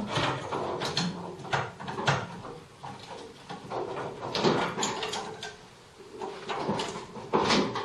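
Irregular clicks, knocks and scrapes of hand work on a metal conduit fitting, with a short lull about six seconds in.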